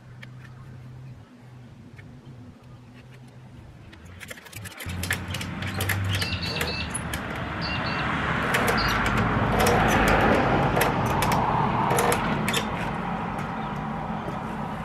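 A passing vehicle on the street: its noise swells over several seconds, is loudest about two-thirds of the way through, then fades. Scattered sharp clicks and a few high chirps sound over it.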